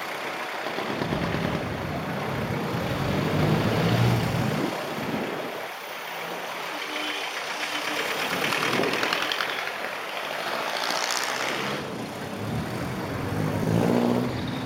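Busy street traffic: engines of cars and jeepneys passing close, over a steady rush of road noise. The engine hum swells twice, a few seconds in and again near the end.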